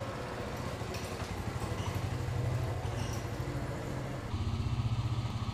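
Motorcycle engine idling with a steady low beat. About four seconds in the sound shifts abruptly to a closer, more distinct idling beat.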